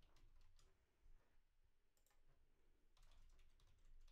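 Faint typing on a computer keyboard: quick keystrokes, a sparse pause of about a second and a half in the middle, then a fresh run of keystrokes near the end.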